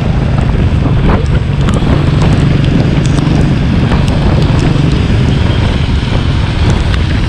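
Heavy wind buffeting the microphone of a motorcycle riding at speed, with the bike's engine running steadily underneath.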